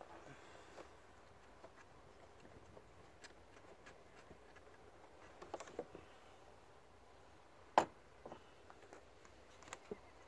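Intake hose and air box being handled and pulled loose under the bonnet: scattered faint clicks and knocks, with one sharp click about eight seconds in.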